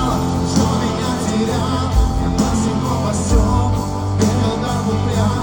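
Background music: the song's backing track continues with bass and drum hits.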